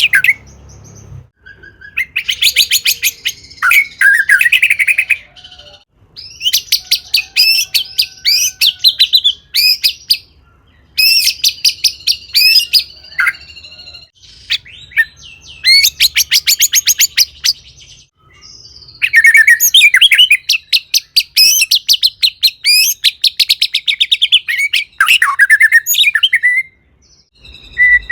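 White-rumped shama (murai batu) in full song: loud, varied phrases of whistles and fast rattling 'kretekan' notes, several bursts of a few seconds each with brief pauses between them.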